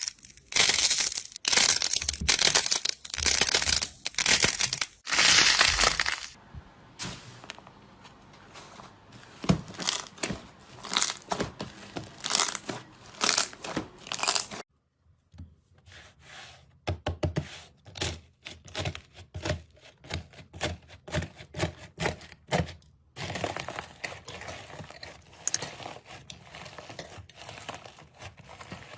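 Hands pressing and squeezing slime, making runs of crackling, crunching pops. The sound comes in several segments with short breaks between them, and is loudest at the start.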